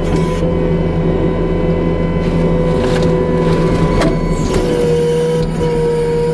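New Holland C327 skid steer's diesel engine running hard to drive a McLaren RM60 forestry mulching head, with a steady mechanical whine over the engine. There are a few sharp cracks about three to four seconds in, and near the end the whine dips slightly in pitch and grows stronger.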